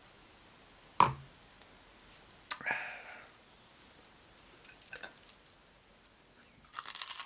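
Tableware being handled: a sharp knock about a second in and another about two and a half seconds in, a few light clicks, then a clinking clatter of dishes near the end.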